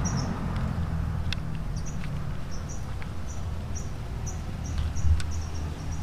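Short high chirps repeating about twice a second from a small animal, over a steady low rumble, with a few light plastic clicks from small toy construction vehicles being handled.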